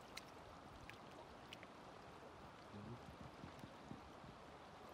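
Faint, steady rush of river water flowing past, with a few faint clicks.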